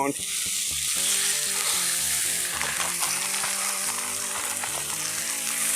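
Thin strips of seasoned steak and chicken sizzling steadily as they fry on the hot, oiled griddle top of a charcoal-fired grill. Background music plays underneath.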